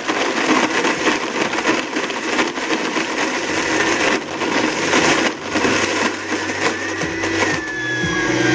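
A Blendtec blender running at speed, churning a milky ice-cream mix in its jar. About seven and a half seconds in, a thin whine comes in over the motor and slowly drops in pitch.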